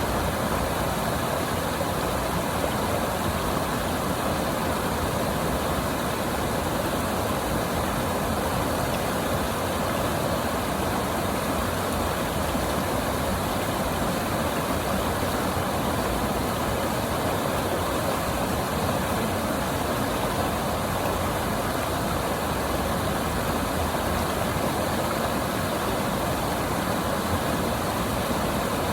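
River water rushing steadily, a constant even noise that does not change.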